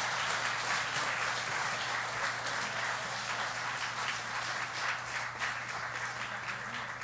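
A roomful of seated guests applauding, many hands clapping together; the applause thins out and fades near the end.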